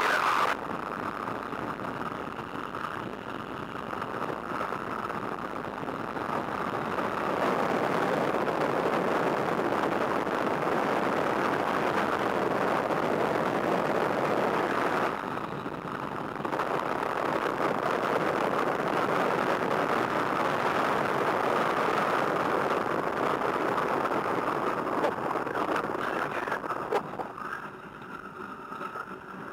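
A de Havilland Tiger Moth biplane's Gipsy Major engine running, mixed with air rushing past the open cockpit. The sound dips briefly about halfway through and falls off near the end.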